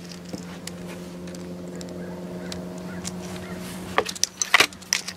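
A steady low hum with a few faint higher tones, then, about four seconds in, a short run of sharp clicks and knocks from handling a Benjamin Trail Nitro Piston 2 air rifle.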